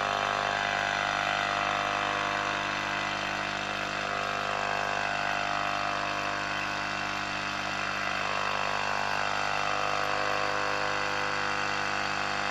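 Philips BF401A valve radio's loudspeaker on long wave, giving a steady hum and noise with a weak, badly received station, crossed by whistles that slide downward every few seconds. The low hum comes through even though an extra ripple filter was added to the audio valve's supply.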